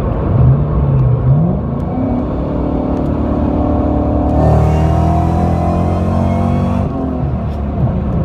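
Supercharged V8 of a 2003–2004 Ford Mustang SVT Cobra pulling hard, heard from inside the cabin, its pitch rising more than once in the first two seconds. A louder, harsher stretch comes about halfway through and eases off near the end.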